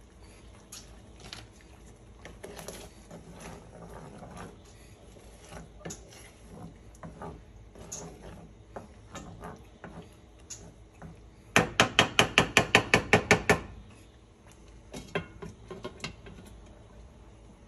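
A slotted wooden spoon scraping and tapping while stirring sauce in a nonstick skillet, then, about two thirds of the way in, a quick run of about a dozen sharp knocks of the spoon against the pan's rim, with a few more knocks a little later.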